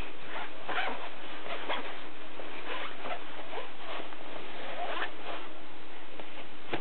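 A baby's short, breathy sniffs and small hitching breaths, coming irregularly over a steady background hiss.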